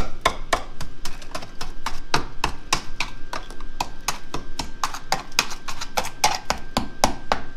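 A hand tool worked quickly at the rear seat bench mounting in the car's floor: a fast, even run of sharp metallic clicks or taps, about five or six a second.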